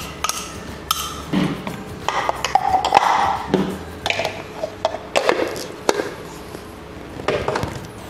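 Kitchen utensils handled: a metal spoon scraping and knocking against a plastic food-chopper bowl and a stainless steel mixing bowl, with irregular clinks and knocks as the chopper blade and bowl are lifted out.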